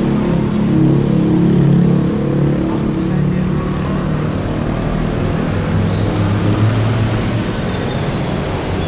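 An engine running close by, a steady low drone that drops in pitch about halfway through.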